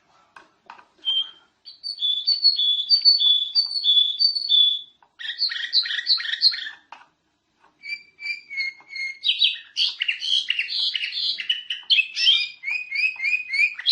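Domestic canary singing continuously, high and loud: a run of alternating two-note phrases, then fast sweeping trills, then further series of quickly repeated notes, each phrase held a second or two before the next one starts.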